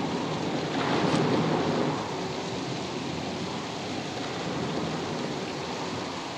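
Storm sound effects on a film soundtrack: a steady rush of rain and storm noise, swelling louder about a second in.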